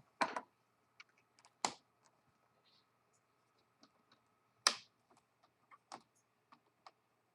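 Plastic laptop screen bezel being pried off with a guitar pick: a scatter of short sharp clicks and snaps as the clips let go, the loudest a little under two seconds in and again near the middle.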